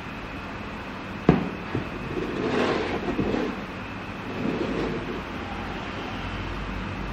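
Small battery-powered multimedia table fan running steadily, with a sharp click about a second in and two stretches of rustling handling noise.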